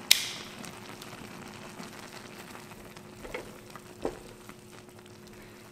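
A shallow pan of noodles in broth simmering with a faint, steady hiss while metal tongs work in it. A sharp clack comes just after the start, and two light knocks follow about three and four seconds in.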